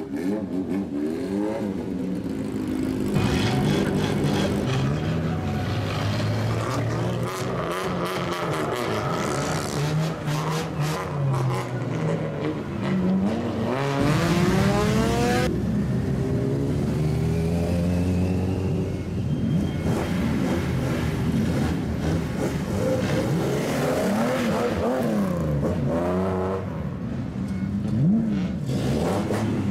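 Lowered kaido-racer cars with straight-piped exhausts revving their engines over and over as they pull away slowly, the pitch climbing and dropping with each blip. One steep rising rev comes about halfway through.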